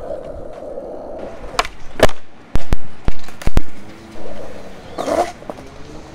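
Skateboard wheels rolling on concrete, then a run of sharp, very loud clacks of the board about two to three and a half seconds in, with a short scrape near the five-second mark.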